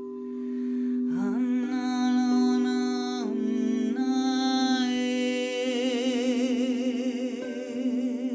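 Crystal singing bowls ringing in a steady drone, with a wordless voice singing long wavering notes over them. The voice slides up into its first note about a second in and moves to new held notes several times.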